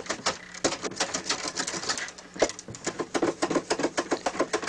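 A knife knocking off the inside of the nodes on split bamboo cane strips: rapid light clicks and scrapes, several a second, with one sharper knock about two and a half seconds in.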